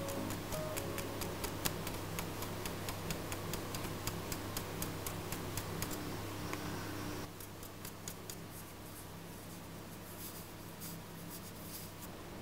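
Flour and cocoa powder being sifted through a hand-held mesh sieve into a stainless-steel bowl: a fast, even run of light ticks, about three a second, that drops in level about seven seconds in.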